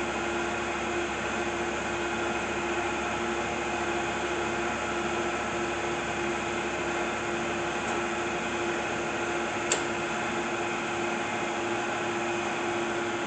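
Acer Ultima 3VK vertical milling machine's 3 hp milling head running steadily under power, a smooth, very quiet hum with a steady tone. One sharp click sounds about ten seconds in.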